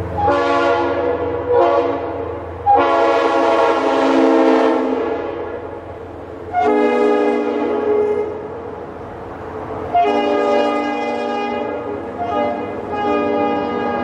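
Leslie RS3L three-chime air horn on a passing train, blown in a series of about six blasts, each a steady chord lasting one to two and a half seconds, with short gaps between. A low rumble from the train lies under the first few blasts.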